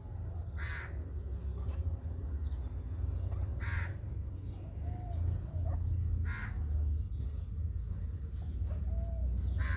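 Harsh bird calls, four short caws spaced a few seconds apart, over a steady low rumble.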